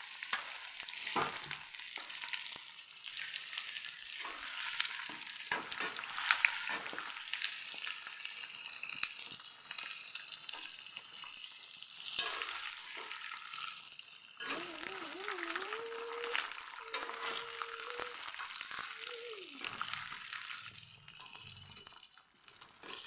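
Whole Indian jujubes (bogori) frying in hot oil in a kadai, a steady sizzle with lots of small crackles and pops, and the occasional clink of stirring.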